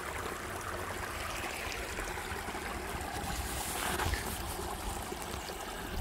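Shallow rocky creek trickling steadily over stones.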